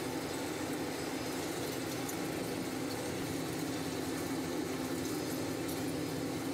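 Steady hum and hiss of factory machinery and ventilation, with one constant low tone running underneath.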